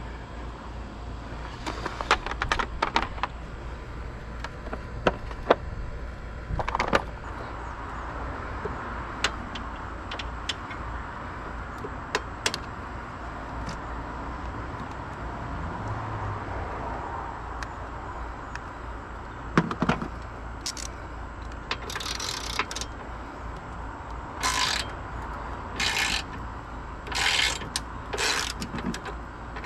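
Hand tools working on a car's engine bay: scattered metal clicks and clinks of sockets and bits, then, from about two-thirds of the way in, a string of short spells of socket-wrench ratcheting, all over a steady low hum.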